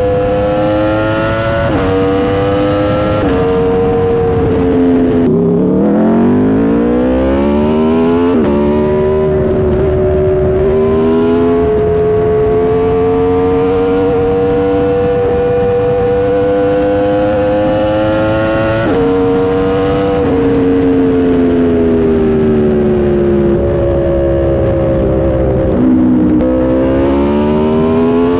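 Motorcycle engine through a Leo Vince aftermarket exhaust, accelerating through the gears. The pitch climbs and drops at each upshift, with one long steady climb in the middle. Near the end it eases off with the pitch falling, then picks up again.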